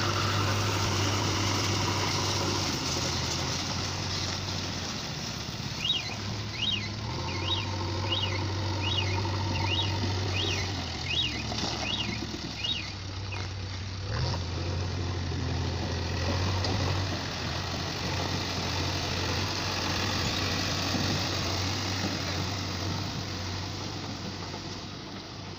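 JCB 3DX backhoe loader's diesel engine running at work, its revs rising and falling several times. Midway, a run of about nine short high chirps, each rising and falling, sounds over it.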